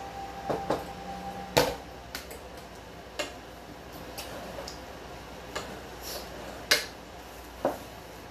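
A fork clinking, tapping and scraping on plates and dishes while a meal of spaghetti is eaten: about ten scattered light clicks and knocks, with sharper knocks about one and a half seconds in and again near seven seconds.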